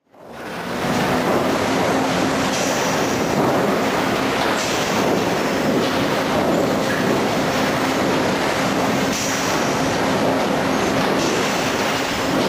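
Lumber crib stacker and its conveyors running: a steady, dense mechanical clatter with a faint hum and occasional brief high squeals. It fades in over the first second.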